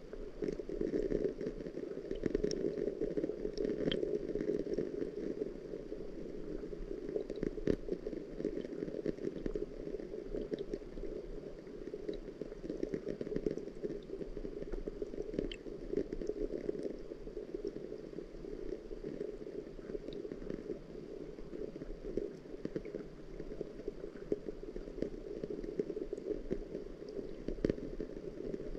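Steady, muffled water noise with scattered small clicks and drips, a few of them sharper.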